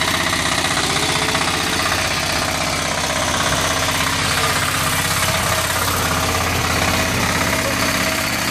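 Diesel two-wheel walking tractor, a 12-horsepower machine, running steadily with an even chug while it drives forward in low gear, pulling a cart of gravel.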